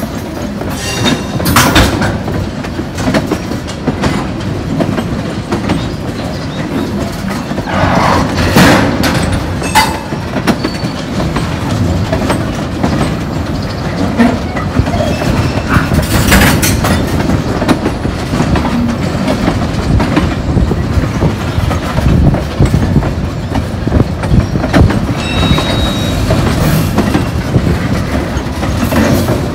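A long string of empty railroad tank cars rolling slowly over yard track: a steady rumble with the clickety-clack of wheels over rail joints, and short screeches from the wheels about two, eight and sixteen seconds in.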